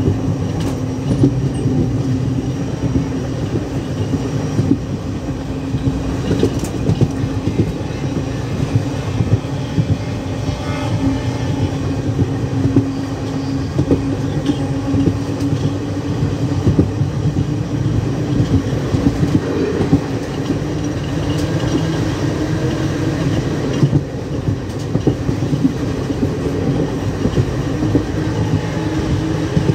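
Train running at speed, heard from on board: a steady rumble of the wheels with rapid clicking over the rail joints and a steady low hum.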